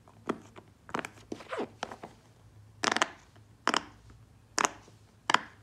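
Round silicone pop-it fidget toy with a Pikachu Poké Ball design, its bubbles pressed through one after another by a child's fingers: a string of loud, sharp pops at uneven intervals, some in quick runs.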